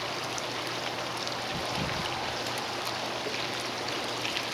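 Meat juices being poured back over pieces of meat in a pan, a steady trickling stream of liquid.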